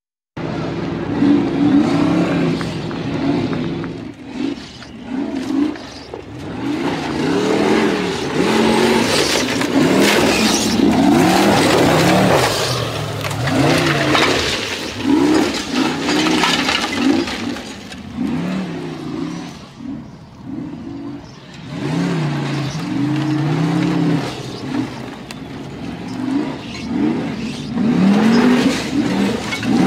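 Formula offroad buggy's engine revving hard, its pitch climbing and dropping over and over as it is driven up a steep gravel hill on paddle tyres. It starts suddenly about half a second in, after silence.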